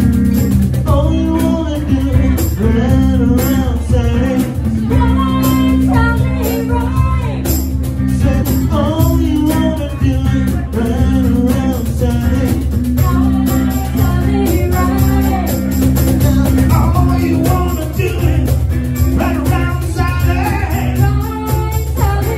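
Live blues band: a man singing lead through a microphone over guitar and cajón, with a woman's voice joining in near the end.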